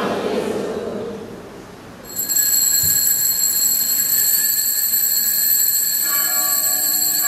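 Small bells start ringing suddenly about two seconds in, a steady high ringing that holds, as the cross is raised in blessing. Lower musical tones join about a second before the end. The murmur of the congregation fades out over the first two seconds.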